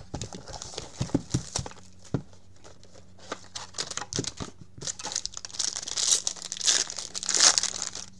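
Plastic wrapper on a trading-card box being torn open and crumpled by hand, a crackly rustle that grows loudest near the end. Light knocks and clicks of the box being handled come first.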